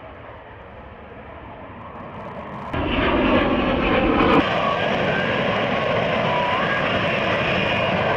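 Aircraft engine noise, steady, jumping abruptly much louder about three seconds in and then holding steady.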